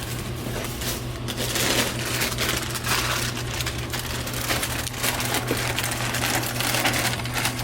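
Plastic snack packets crinkling and rustling, with small clicks and clatters, as a vending machine is stocked by hand, over a steady low hum.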